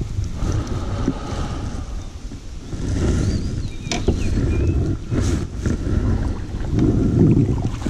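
Wind buffeting the microphone of a camera on a kayak, a low rumbling rush that swells and fades, with a sharp click about four seconds in.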